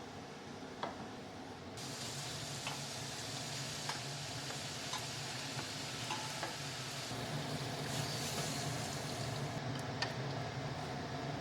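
A steady sizzling hiss with scattered light clicks and taps, growing louder about two seconds in.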